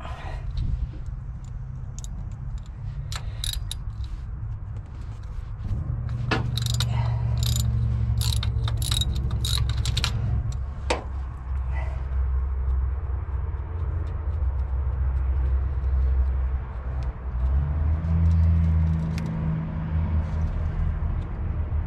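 Metal hand tools (wrench and spanner) clinking and tapping against each other and the engine's bolts, in a cluster of sharp clinks between about six and eleven seconds in and a few scattered ones elsewhere, over a steady low rumble.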